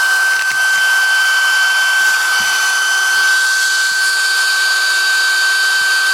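Spindle of a home-built CNC router running steadily while engraving, a constant high-pitched whine over a hiss of cutting noise.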